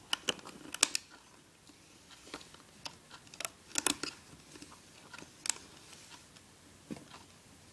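Irregular clicks and snaps of rubber loom bands being stretched and hooked over the pegs of a plastic band loom, handled close to the microphone. The loudest snaps come about a second in and around four seconds in.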